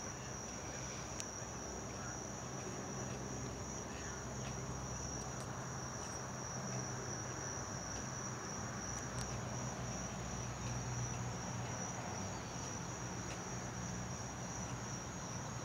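Insects trilling in one unbroken, steady high-pitched note, over a low steady hum.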